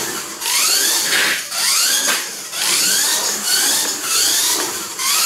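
Kyosho Mini-Z radio-controlled car's small electric motor whining in a quick series of short rises in pitch, about two a second, as the throttle is blipped around the track, over a steady high hiss.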